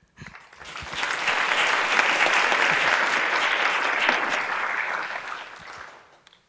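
Audience applauding after a talk. The clapping swells over the first second, holds steady, then dies away about six seconds in.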